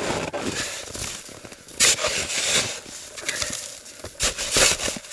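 Irregular crunching and scraping of hard frozen snow and firewood as logs are worked loose from a frozen pile, with several louder crunches. The wood and snow are frozen solid.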